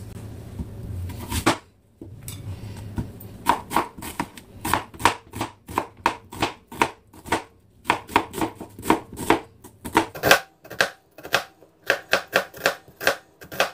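Chef's knife slicing a red onion on a plastic cutting board: a regular series of knife knocks against the board, about two to three a second, starting a few seconds in, with a couple of short pauses.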